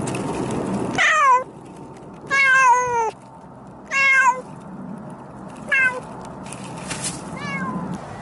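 Domestic cat meowing repeatedly at close range: five meows, each falling in pitch, the second the longest, after a second of rustling.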